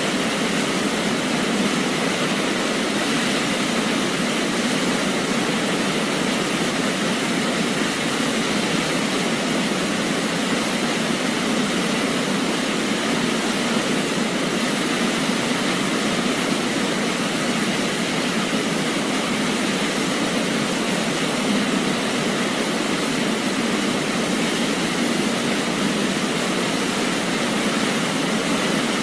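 Waterfall, a steady, even rush of falling water with no change in level.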